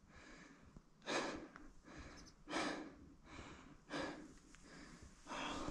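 Heavy, rhythmic breathing close to the microphone, about seven breaths with in and out alternating roughly every three quarters of a second: a hiker panting from exertion at altitude.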